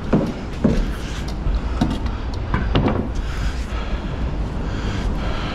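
Long wooden battens being handled and set in place in a truck trailer, knocking against the load and trailer several times over a steady low rumble.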